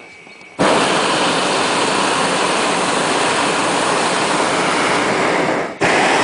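Hot-air balloon's propane burner firing: a loud, steady rushing blast that starts suddenly about half a second in, breaks off for a moment near the end, and fires again at once.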